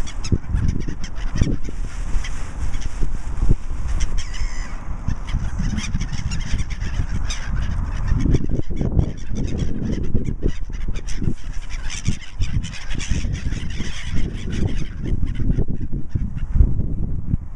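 Birds calling repeatedly, heard over a heavy, gusting rumble of wind on the microphone.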